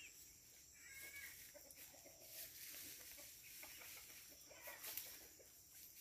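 Faint clucking of free-ranging chickens, with a few short high chirps from birds.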